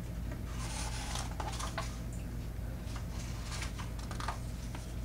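Paper pages of a hardcover picture book being handled and turned: a run of soft crackles and rustles in two clusters, over a low steady hum.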